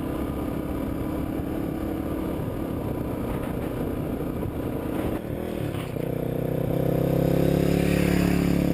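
Honda XR600R single-cylinder RFVC engine running while the bike is ridden, its rebuild freshly done and the new piston rings breaking in. About five seconds in, the sound briefly dips, then settles into a steadier, louder engine note.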